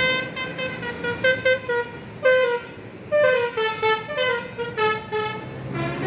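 A bus's basuri telolet musical air horn playing a tune. Short notes step between pitches, then a run of notes falls in pitch about halfway through.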